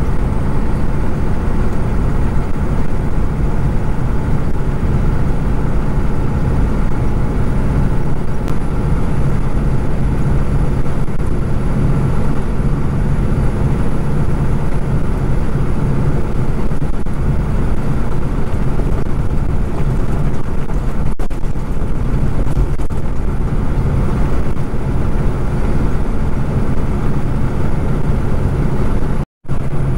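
Kenworth prime mover's diesel engine running steadily under load while hauling a triple road train, with even road and tyre noise. The sound cuts out for a split second near the end.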